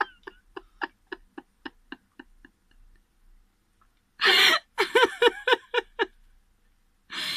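A person laughing: a run of short laughs about four a second that fades out, then after a pause a louder burst of laughter about four seconds in, and another brief outburst near the end.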